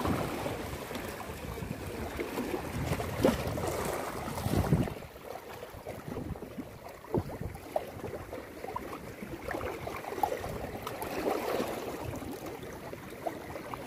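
Wind buffeting the microphone over the wash of seawater against rocks. The wind eases about five seconds in, leaving the quieter water wash with a few faint ticks.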